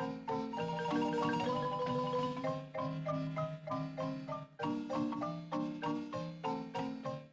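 Instrumental Mexican folk music: a fast melody of short struck notes that fade quickly, over a repeating bass line.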